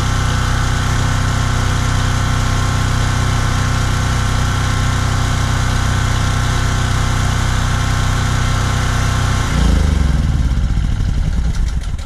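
DuroMax XP4850EH dual-fuel generator's single-cylinder engine running steadily on propane. Near the end its sound changes abruptly and then begins to die away as the generator is shut down.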